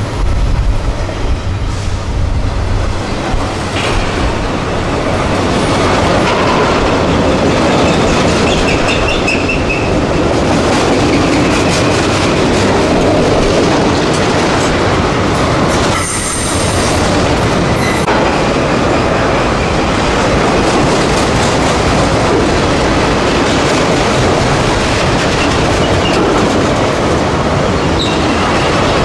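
A long freight train rolling past close by, its wheels clattering over the rail joints in a steady rumble, with short wheel squeals now and then.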